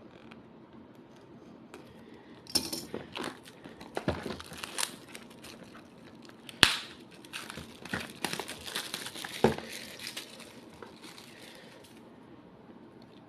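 Speedcube box being opened by hand: packaging rustling and crinkling, with scattered clicks and scrapes and one sharp snap about halfway through. It begins a couple of seconds in and dies away near the end.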